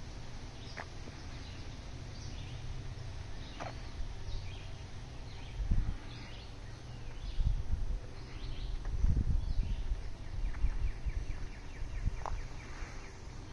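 Outdoor ambience: scattered short bird chirps over a steady low hum, with a few louder low rumbles a third and two thirds of the way in, like wind on the microphone.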